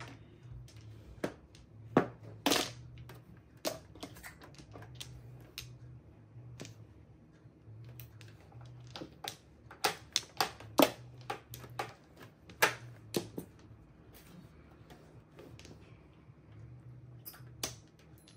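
Mahjong tiles clacking on the table as players draw and discard: irregular sharp clicks, a few much louder than the rest, bunched in a couple of quick runs.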